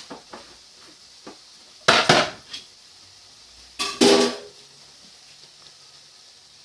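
Kitchen utensils clattering against a cooking pot: two loud clanks about two and four seconds in, the second one ringing briefly, with a few light clicks before them. This is the clatter of adding coconut cream to the simmering noodles.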